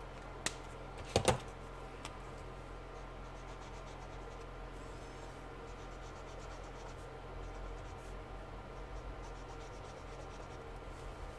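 A couple of sharp clicks early on, then a yellow Winsor & Newton marker's nib scratching and rubbing on brown paper in short repeated colouring strokes.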